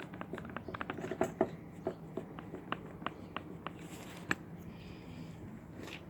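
Inner CV joint of a Subaru Outback drive shaft being worked by hand, giving a run of light metallic clicks at about four a second that thins out to a few single knocks after about four seconds.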